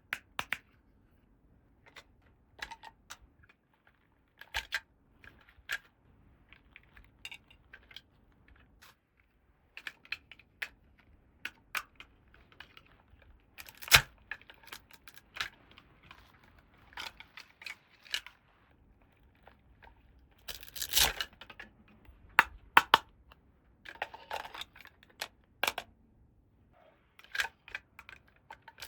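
Small plastic toy pieces and packaging being handled: scattered clicks and taps with short stretches of crinkling, one sharp click standing out about halfway through.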